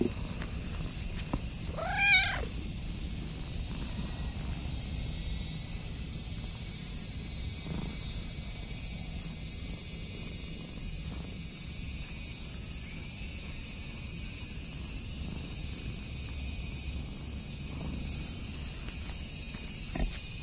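Orange tabby cat gives one short meow about two seconds in, its pitch rising and falling. Under it a steady chorus of insects runs throughout and grows a little louder about halfway.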